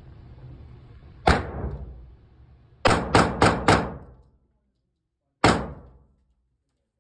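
Gunshots at an indoor shooting range, each with a short echoing tail: a single shot about a second in, a quick string of four about three seconds in, and one more shot near the end.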